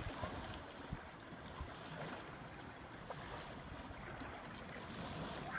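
Small river waves lapping against a concrete boat ramp, with light wind on the microphone.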